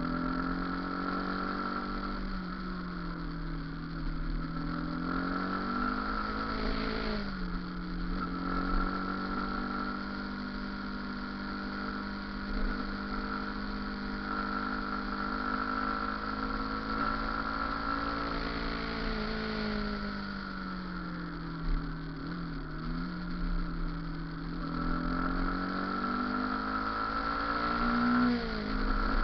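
Motorcycle engine running while riding, its pitch falling and climbing again a few times: about seven seconds in, around twenty seconds in, and near the end.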